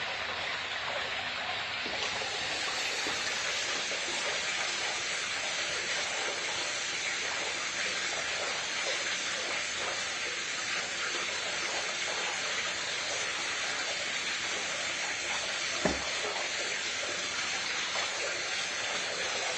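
Flood coolant running steadily through a homemade CNC chip conveyor, an even rush of water, with a single knock near the end.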